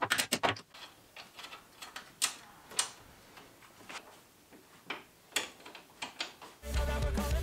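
Hand tools and metal parts clicking and knocking against the steel chassis: a quick run of clicks at the start, then scattered single clicks and clinks. Rock music with drums comes in near the end.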